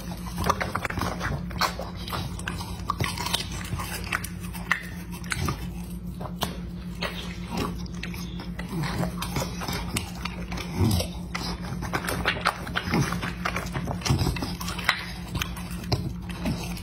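A dog biting and chewing pieces of green fruit: many irregular crunching clicks over a steady low hum, with a few short low sounds from the dog in the second half.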